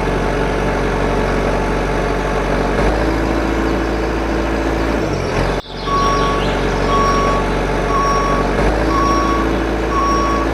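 Vehicle engine running steadily, cut off abruptly about halfway, then resuming with a reversing alarm sounding five short beeps about once a second.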